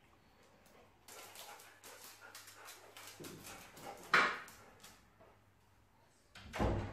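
Golden retriever giving one short bark about four seconds in, with a run of light clicks shortly before it and a low thump near the end.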